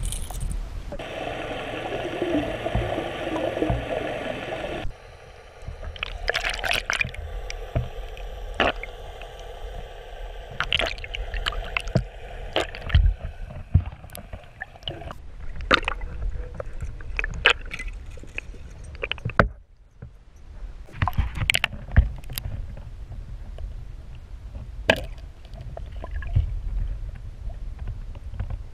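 Underwater audio from a Water Wolf fishing-line camera being pulled through the water: a steady low rush of water against the housing, with scattered clicks and knocks. There is a louder hiss between about one and five seconds in.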